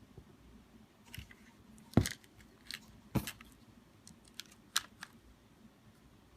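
Handling noise of two pistols being picked up and held together: a few sharp clicks and knocks, the loudest about two seconds in and another about a second later, with lighter ticks between.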